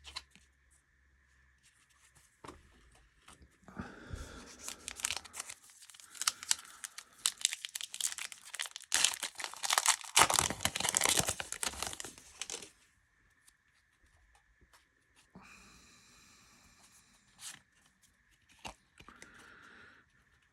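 A trading-card pack wrapper torn open and crinkled by hand, a dense crackling stretch that runs from about four seconds in to about thirteen, followed by quieter, scattered rustling as the cards are handled.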